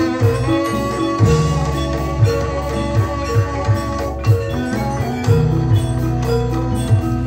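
Gamelan ensemble playing live: metallophones repeat a stepped melody over regular kendang drum strokes, with an electronic keyboard in the group. A long held high note comes in about a second in and drops out about four seconds in.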